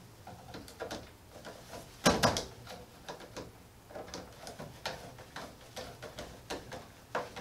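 Screwdriver clicking and scraping on a circuit breaker's terminal screw while a surge protector lead is tightened down, with small irregular knocks of handling; the loudest clatter comes about two seconds in.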